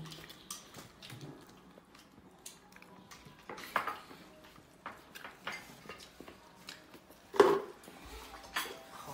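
Chopsticks and porcelain bowls clinking and tapping at a meal: scattered light clicks and clatters of tableware, the loudest about seven seconds in.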